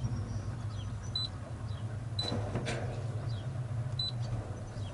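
Steady low machine hum, with a short high beep three times.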